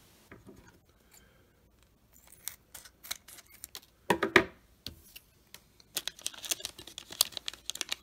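Foil wrapper of a baseball card pack crinkling in short crackles as it is handled, with a louder crackle about four seconds in, then a dense run of crackling near the end as the pack is torn open.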